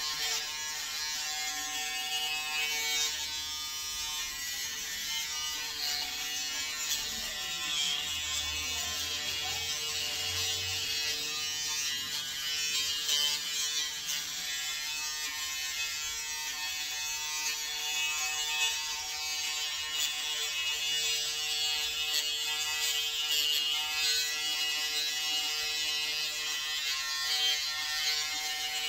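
Braun Series 5 (50-W4200cs) foil electric shaver running while shaving stubble: a steady hum with a hiss above it.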